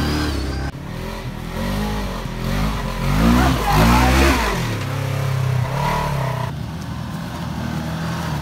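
Side-by-side UTV engines revving up and down in a few short cuts, the loudest run of rising revs about halfway through.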